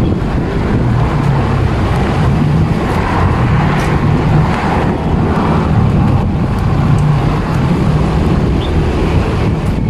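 Heavy city road traffic: a steady rumble of passing vehicle engines, with wind buffeting the microphone.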